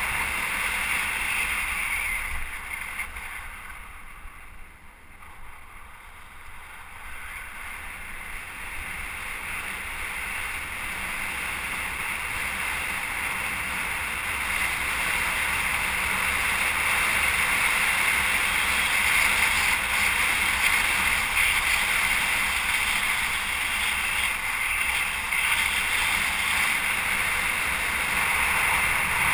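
Steady wind rushing over the microphone of a moving camera, with road noise underneath. It dies down about three to seven seconds in, then builds up gradually again.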